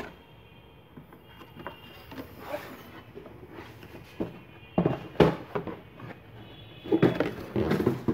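Cardboard box lid and packaging being handled during unpacking, with scattered short knocks and scrapes. The handling is busiest about five seconds in and again near the end.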